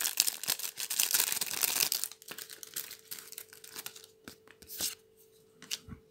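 Plastic wrapper of a trading-card promo pack being torn open and crinkled for about two seconds, then a few light clicks and rustles as the card is handled.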